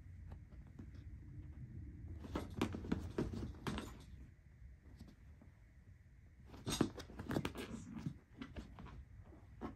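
Maine Coon mix cat's paws and claws scrabbling and scuffing on a padded bench seat as it spins after its tail, in two bursts of scratching about two and a half and seven seconds in, with a brief scuff near the end.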